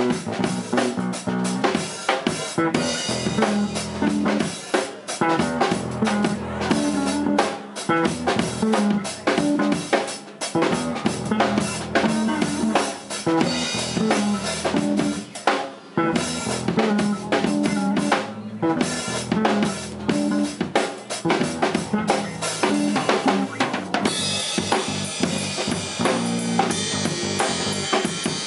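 A live instrumental jam of electric bass guitar and drum kit: a steady drum groove over a bass line. Near the end the cymbals grow brighter and busier.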